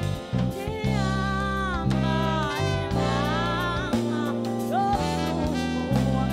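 Live jazz band playing: a melody line that bends and slides in pitch over held bass notes and drums.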